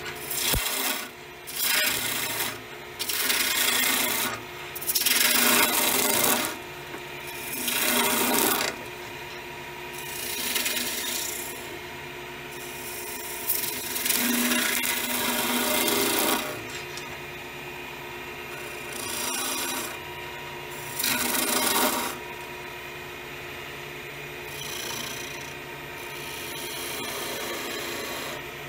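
Skew chisel cutting a spinning willow spindle on a wood lathe in repeated passes. Each pass is a loud hiss of shavings lasting from about a second to several seconds. Between passes the lathe's motor hums steadily.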